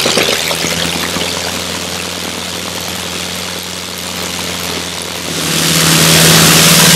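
Replica Gnome rotary aero engine running on a test stand, its cylinders and propeller spinning together. The engine note eases back about a second in and grows louder again around five seconds in.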